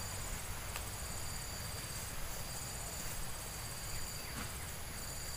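Outdoor insect chorus of steady and pulsing high-pitched tones, over a low rumble of wind on the microphone, with a couple of faint clicks.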